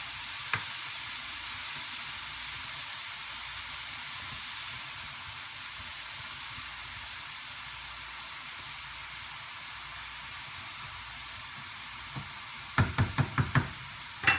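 Leafy greens sizzling in a frying pan on a gas stove while being stirred, a steady hiss. One click about half a second in, and a quick run of about five sharp knocks near the end.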